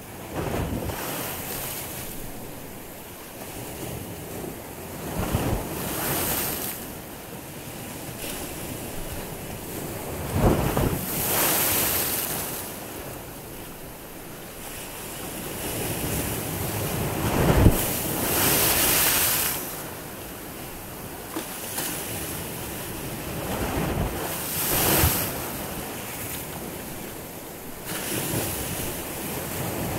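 Small sea waves breaking and washing in at the shoreline, a surge of surf with a bright hiss about every six seconds over a steady wash of water.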